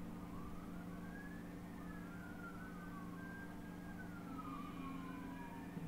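Faint emergency-vehicle siren wailing, its pitch slowly rising and falling, with two wails overlapping. A steady low hum runs underneath.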